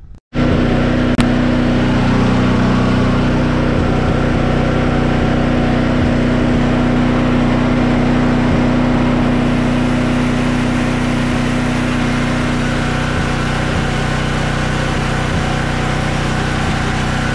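Briggs & Stratton Elite 8,000-watt portable generator's engine running steadily with no load on it. One sharp click sounds about a second in.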